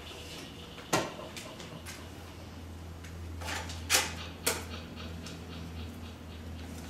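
Sparse improvised percussion over a steady low hum. A single sharp knock comes about a second in, then three close together around the four-second mark.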